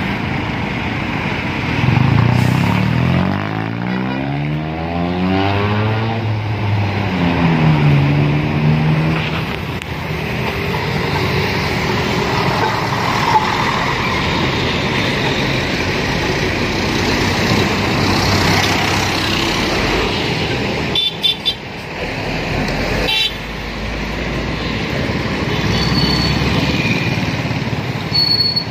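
Street traffic: a heavy vehicle's engine revs up over a few seconds, then drops back and picks up again, before steady traffic noise.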